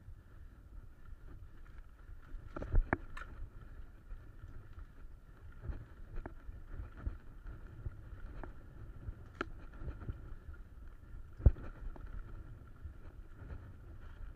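Mountain bike rolling fast down a bumpy dirt trail: a steady low rumble with sharp knocks and rattles as it jolts over the ground, the loudest about three seconds in and again near eleven and a half seconds.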